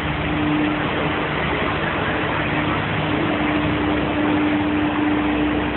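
The Batmobile show car's engine running steadily as it drives slowly along a city street, a constant low hum over a haze of street noise.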